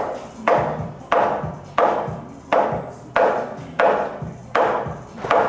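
Hammer blows into a timber beam overhead, about eight evenly spaced strikes, roughly three every two seconds, each with a short ring.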